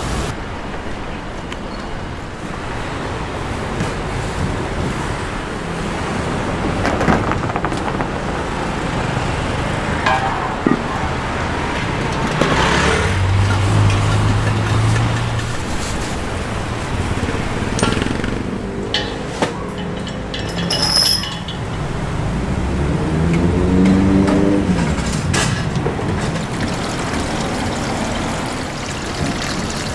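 Road traffic noise: vehicles passing in a steady rumble, with a few sharp clatters.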